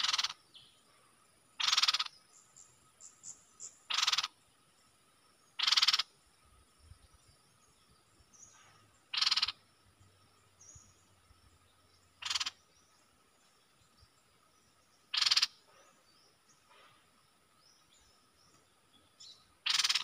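Caged decoy bulbul giving short, loud, harsh calls, eight of them every two to three seconds, to lure wild birds. Faint birdsong chirps sound between the calls.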